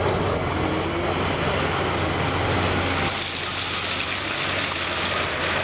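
Diesel engine of a large Cat 374D excavator running steadily; about three seconds in the low engine note drops away and the sound eases.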